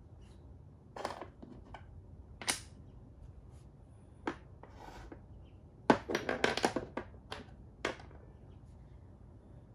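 Makruk (Thai chess) pieces clicking and knocking on the board as they are picked up and set down, a few single taps and then a quick run of clatters about six seconds in.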